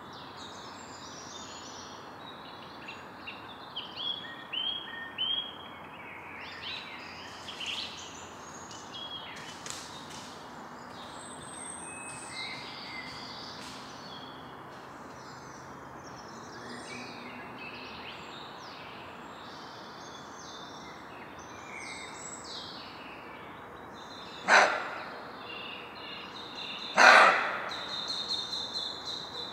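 Evening forest ambience: many birds calling and chirping over a steady background hum of noise. Near the end there are two loud, harsh sounds a couple of seconds apart.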